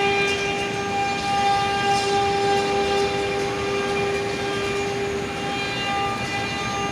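CNC engraving machine running with a steady, even-pitched whine and hum from its motors.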